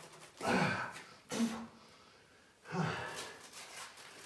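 A man breathing out heavily three times, sighing and huffing with exertion.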